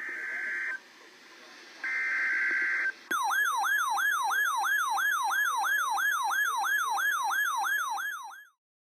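Emergency Alert System header: two short bursts of screeching digital data tones, then a siren-like attention tone sweeping up and down about three times a second for about five seconds before it cuts off.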